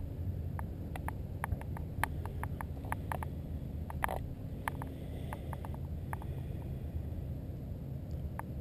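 Steady low rumble of wind on the microphone, with scattered small clicks and ticks throughout and a slightly longer rustle about four seconds in.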